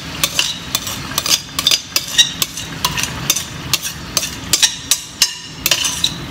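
Cooking utensil knocking and scraping against a pot as chicken pieces are turned in it: many irregular sharp clinks, several a second, some with a short ring.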